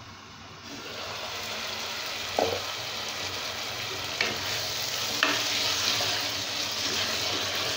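Thick mushroom curry sizzling in a pan while being stirred with a wooden spoon; the sizzling comes up about a second in. The spoon knocks against the pan three times. The gravy has cooked down after five minutes of boiling.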